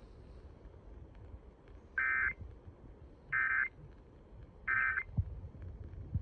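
Emergency Alert System end-of-message (EOM) data tones on a radio broadcast: three short buzzy bursts about 1.4 seconds apart, marking the end of the alert, over faint hiss.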